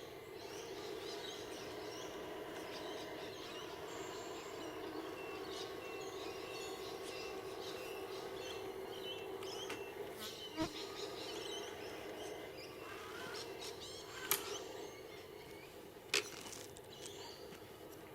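A small electric motor's steady buzzing whine, with three sharp clicks in the second half.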